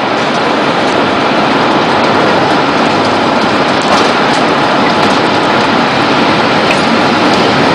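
Steady, loud rushing roar of storm wind, without a break.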